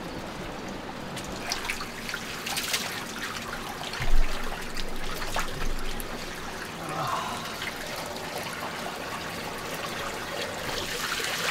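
Hot spring water trickling and splashing in an old bathtub as a person climbs in, with one thump about four seconds in.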